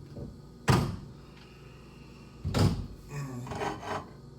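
Two loud knocks in a kitchen, about two seconds apart, like doors or cookware banging shut.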